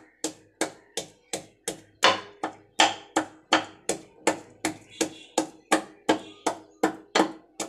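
Wooden pestle pounding whole green Indian olives (jolpai) in a wooden mortar: a steady rhythm of knocks, about three a second.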